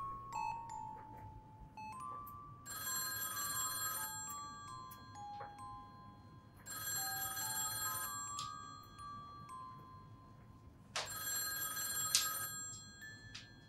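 Old wall-mounted telephone's bell ringing three times, each ring about two seconds long and about four seconds apart, over a soft melody of single chiming notes.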